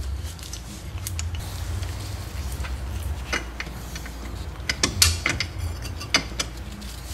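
Large pliers clicking and knocking against a front disc brake caliper as its piston is squeezed back into the bore: a few scattered sharp metallic clicks, loudest about five seconds in, over a steady low hum.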